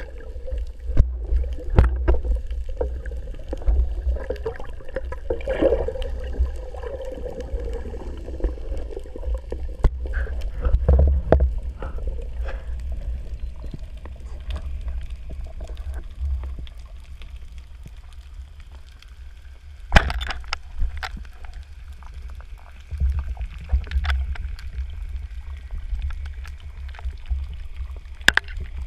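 Underwater noise picked up through a camera housing on a speargun during a freedive: a steady low rumble of water flowing past, with scattered sharp clicks and knocks, the loudest about two-thirds of the way through and another near the end.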